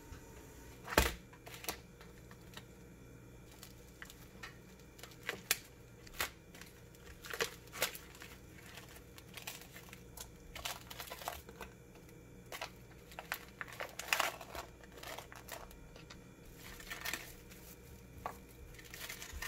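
Plastic wrap and a plastic bag crinkling and rustling as frozen Korean fish cakes are handled and sorted into portions, in scattered short bursts. A sharp knock about a second in is the loudest sound.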